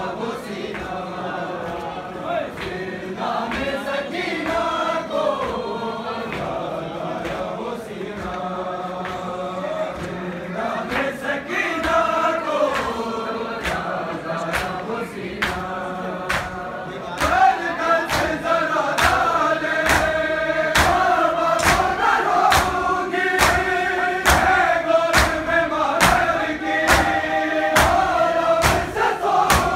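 Men's voices chanting a noha, a Shia lament, in unison with a lead reciter. Sharp rhythmic chest-beating (matam) slaps keep time, becoming steadier and more frequent about halfway through.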